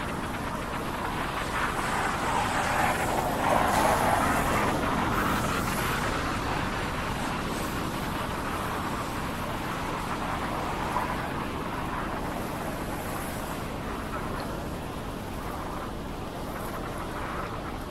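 Road traffic on wet city streets: a steady hiss of tyres and engines that swells as a vehicle passes about three to four seconds in, then slowly eases off.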